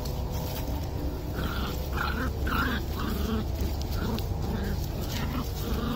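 Two puppies play-fighting, giving a string of short growls and yips about twice a second from a second or so in, over a steady low rumble.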